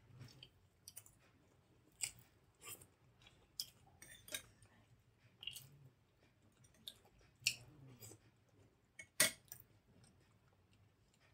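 Close-up mouth sounds of chewing soft idli with sambar and coconut chutney: quiet wet chewing broken by a dozen or so sharp, irregular smacks and clicks, the loudest about nine seconds in.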